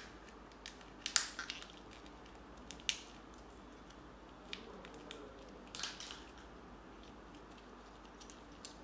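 Hard plastic clicks, snaps and crackles from a Kinder Joy toy capsule being pried open and its small plastic toy and paper leaflet handled. The loudest snap comes about a second in, another near three seconds, and a short cluster of crackles near six seconds.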